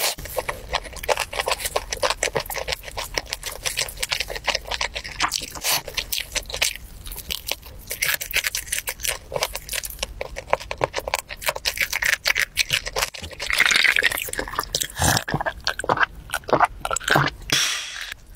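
Close-miked eating sounds of saucy glazed chicken being chewed: many rapid wet clicks and smacks of mouth and sauce, getting denser and breathier a little past the two-thirds mark.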